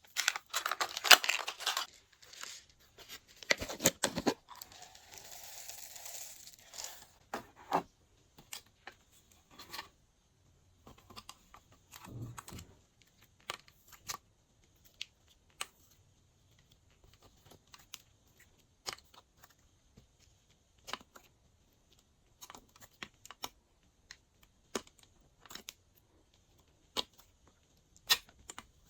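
Glossy slime being mixed and pulled by hand: sticky clicks and small pops, packed close together in the first seconds, then a short steadier rustle, then only scattered clicks.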